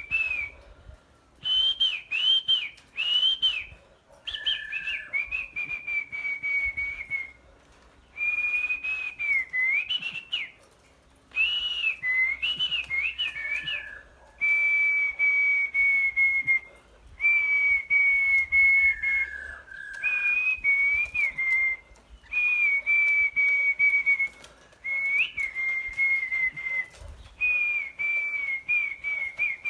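Clear whistled song in a series of phrases, each one to two seconds long with short pauses between. Each phrase holds one high pitch with small wavers and turns, and a lower note now and then.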